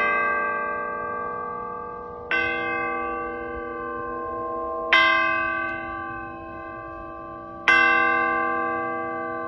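A bell struck three times, about two and a half seconds apart, each note ringing on and slowly fading into the next.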